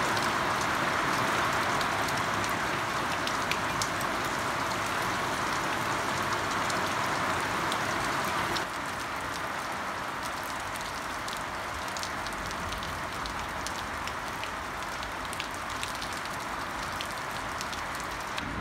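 Steady rain falling, with many sharp ticks of single drops striking close by. It turns a little quieter about halfway through.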